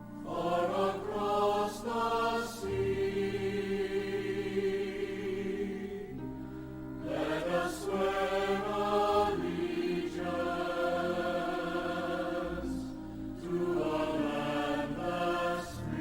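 Slow music of long-held sung notes, each phrase sliding into pitch, over low sustained drone tones.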